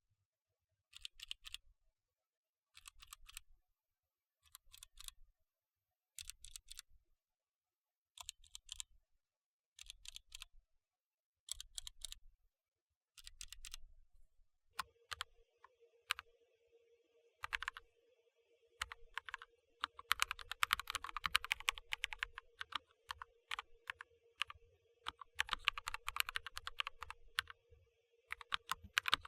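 Mechanical keyboard keys being pressed. First come short separate bursts of Gateron Brown tactile switches, one burst every couple of seconds. About halfway through, Gateron Cap Teal switches take over, typed in fast dense runs over a faint steady hum.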